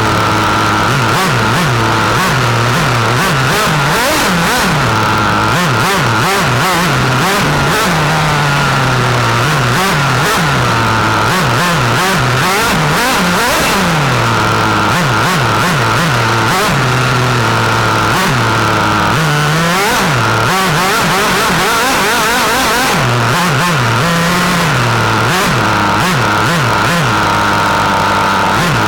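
Small nitro glow engine of a 1/8-scale radio-controlled racing car, heard from an onboard camera, revving up and dropping back over and over as the car is driven around the track.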